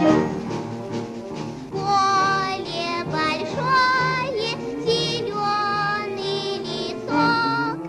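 A children's song: a high voice singing in Russian with a wavering vibrato over light instrumental backing. The sung phrases begin about two seconds in, after a short instrumental lead-in.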